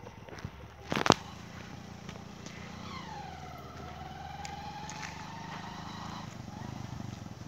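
Motorcycle engine running steadily as the bike approaches. There is a sharp loud knock about a second in. From about three seconds a long drawn-out tone falls in pitch, then holds steady for about three seconds.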